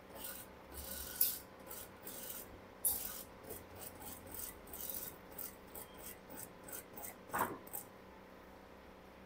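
Fabric and interfacing being fed through an industrial sewing machine in short, irregular rasping strokes, about two a second, with one louder thump about three quarters of the way in.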